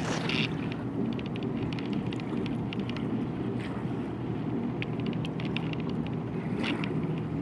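A steady, low engine drone with several even tones, with wind on the microphone and scattered light clicks over it.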